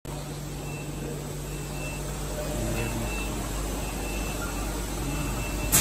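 Small filament extrusion line running: a steady motor hum that steps slightly lower in pitch about two and a half seconds in, with a faint high whine coming and going. A sudden loud rush of noise comes right at the end.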